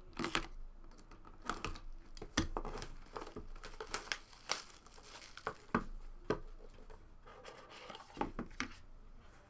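Plastic wrapping on trading card boxes being torn open and crinkled, in irregular sharp crackles with a few light taps and handling knocks.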